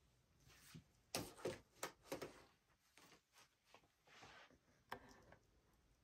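Faint handling sounds as a plastic cutting mat is positioned at a Cricut cutting machine: a quick run of light clicks and knocks about a second in, then a soft brushing and one sharp tap near the five-second mark.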